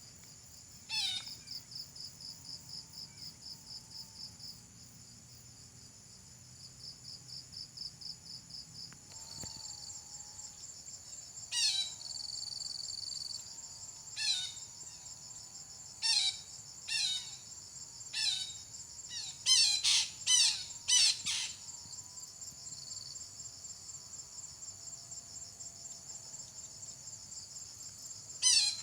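Steady, pulsing chorus of insects, crickets or cicadas, with repeated sharp bird calls that slide quickly down in pitch. The calls come singly at first, then in a quick cluster, and they are the loudest sounds.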